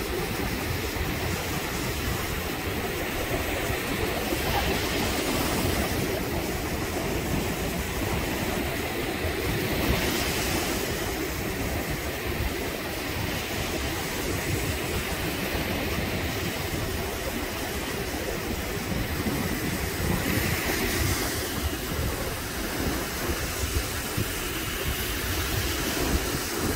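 Wind buffeting the microphone over steady surf breaking and washing up the sand, with hissy swells of breaking waves about ten and twenty seconds in.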